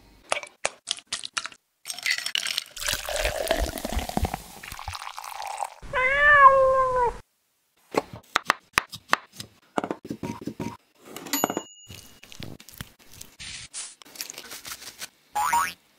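A single cat meow about six seconds in, rising then falling in pitch, among scattered kitchen handling clicks and taps.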